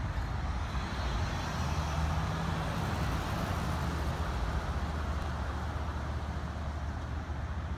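Steady low hum with a hiss over it, the sound of road traffic or a running vehicle engine.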